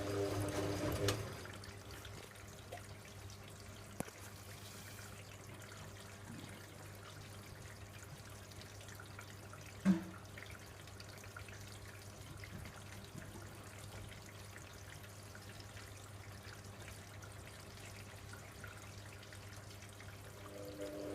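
Hoover Logic A3790 washing machine in its wash phase: the drum motor stops about a second in, and during the pause water trickles and drips in the drum over a steady low hum, with a click and then a short loud knock partway through. The drum starts turning again right at the end.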